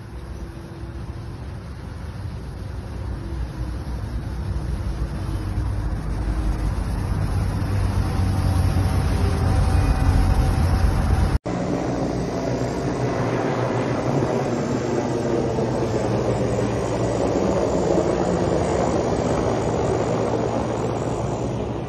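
Engines of wheeled armoured vehicles in a convoy passing on a road, a deep rumble that grows steadily louder. It cuts off abruptly about eleven seconds in, and a steady whirring engine and rotor noise from a military helicopter in flight follows.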